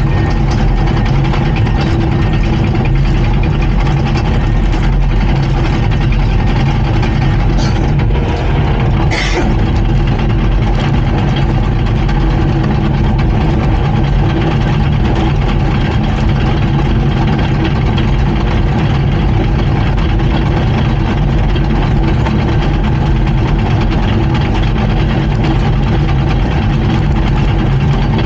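Komatsu D39PX bulldozer's diesel engine running steadily and loud, with a brief high squeak about nine seconds in.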